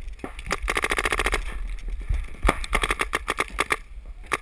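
Paintball marker firing in rapid bursts: a fast string of more than a dozen shots a second about half a second in, lasting nearly a second, then more scattered shots in the second half.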